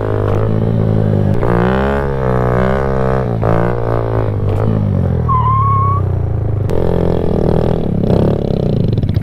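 Kawasaki Z125's single-cylinder engine running at steady throttle, its pitch wavering up and down as the rider works the throttle.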